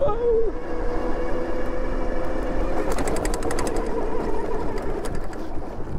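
Electric rear hub motor of a Super73 e-bike whining steadily under load on a steep dirt climb, over a low rumble of tyres and wind. A brief run of rapid clicks comes about halfway through.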